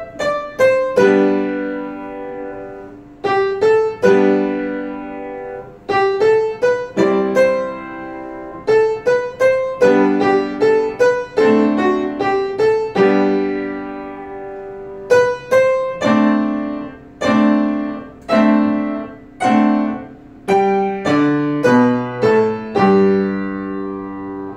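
Upright piano played by hand: a simple melody over struck chords, each note ringing and fading. A last chord rings out and dies away near the end.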